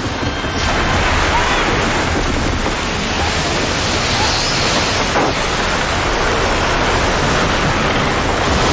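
Storm at sea: strong wind and breaking waves in a steady, loud rush of noise.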